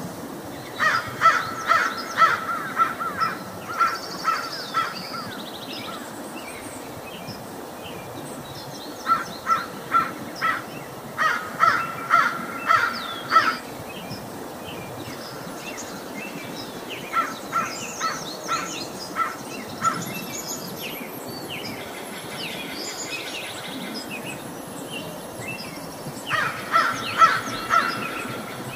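Crows cawing in four bouts of quick repeated caws, with fainter high-pitched bird chirps and a steady outdoor background hiss between the bouts.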